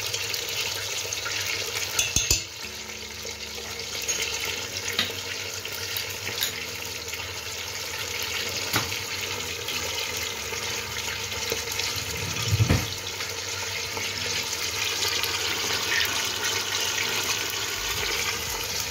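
Lamb's head meat and onions sizzling steadily as they start to fry in fat in a steel pot on a gas stove, with a couple of sharp knocks of pot or utensil.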